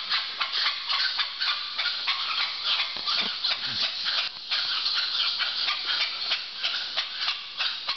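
Mantled howler monkeys howling, a continuous chorus of rapid, pulsing calls that rise and fall several times a second.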